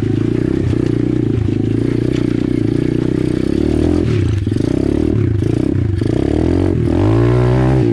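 Apollo RFZ 125cc pit bike's single-cylinder four-stroke engine running under throttle on a rough trail. The engine holds steady at first, then its revs dip and rise several times and climb near the end as the rider accelerates.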